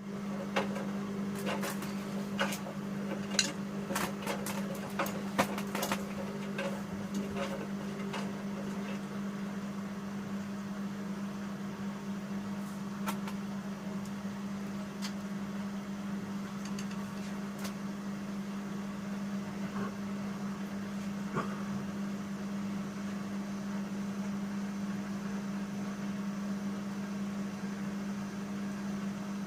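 Bauknecht GreenIntelligence Super Eco 6413 washing machine running mid-cycle with a steady low hum, with a scatter of clicks and knocks in the first few seconds.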